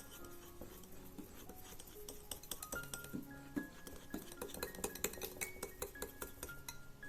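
A metal utensil clinking and tapping quickly against a bowl, as in mixing, several clicks a second starting about two seconds in and growing busier toward the end, over soft background music.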